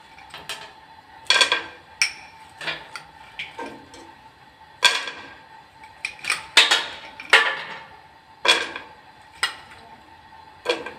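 Metal spoon scooping green peas from a glass bowl and dropping them into an aluminium pot: about a dozen sharp clinks at uneven intervals.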